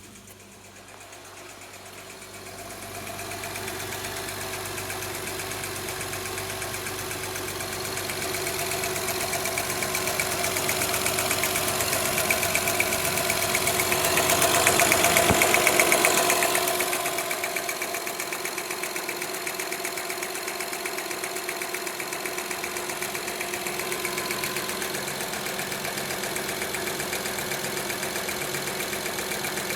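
Honda Odyssey engine running with a rapid ticking, linked to a misfire on cylinder 2. The engine's sound builds over several seconds, peaks about halfway through, then drops back to a steady idle.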